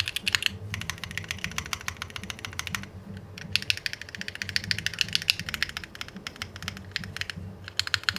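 Fast typing on a custom 60% mechanical keyboard built with CK x Haimu Pastel Peach linear switches, a copper plate and GMK keycaps: a dense run of keystroke clacks, with short pauses about three seconds in and near the end.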